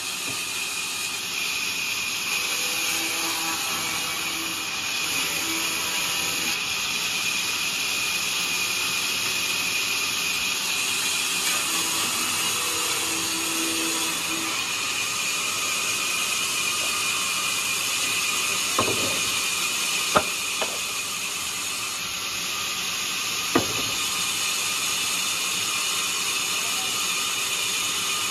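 Large vertical band saw running steadily while ripping a thick wooden slab lengthwise. Three short, sharp knocks come about two-thirds of the way through.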